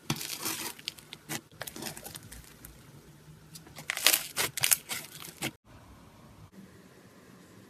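Slime being squeezed and pulled by hand, crackling and tearing in quick clusters of sharp strokes, loudest about four seconds in, then cutting off suddenly near the end.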